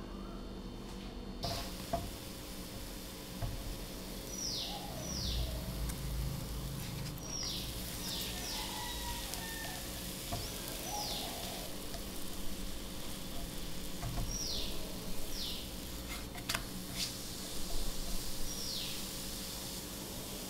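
Thin batter sizzling steadily in a nonstick frying pan over a gas burner, with a few light clicks of a silicone spatula on the pan. Short, high, falling chirps like a small bird's come now and then over the sizzle.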